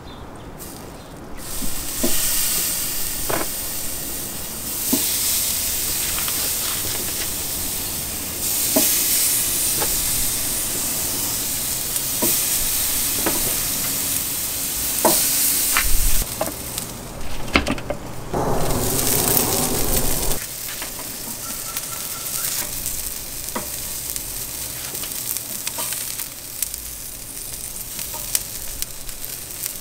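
Seasoned chicken drumsticks sizzling on the hot cast-iron grate of a charcoal kamado grill, a steady high hiss that starts as the meat goes down. Occasional light clicks and knocks, with a louder stretch of sizzling about two-thirds of the way through.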